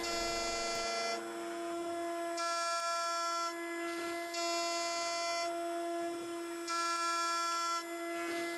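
CNC milling machine cutting a metal block: a steady whine with many overtones. Its tone changes about every second as the cutter works along the part.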